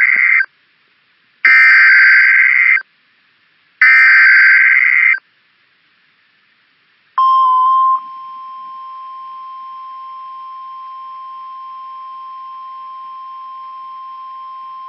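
Emergency Alert System SAME header data bursts from NOAA Weather Radio: three harsh, buzzing digital chirps of about a second each, separated by short silences. About seven seconds in, the single-pitch 1050 Hz weather radio warning alarm tone begins and holds steady, announcing a new severe thunderstorm warning.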